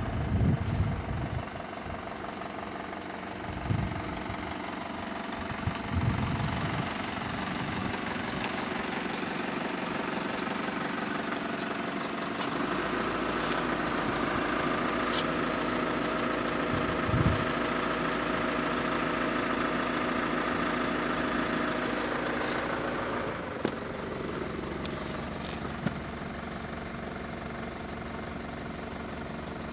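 Nissan Elgrand's 3.0-litre NEO turbo diesel engine running, growing fuller and a little louder from about twelve seconds in and easing back near the end. A few knocks near the start.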